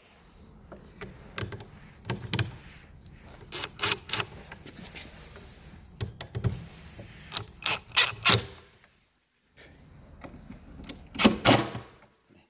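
Irregular clicks and light knocks of a screwdriver and metal and plastic parts as the interior unit of a digital keypad deadbolt is screwed in place, with a louder knock near the end.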